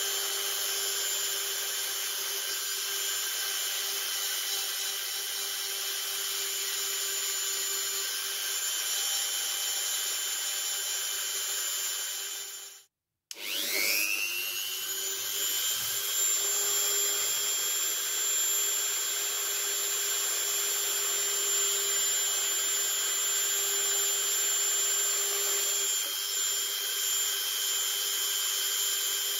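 Dremel-style rotary multitool running with a small bit against wood, a steady whine as it sands and carves the edges of the carving. Just under halfway through it cuts out abruptly, then spins back up, its pitch rising over about a second before settling.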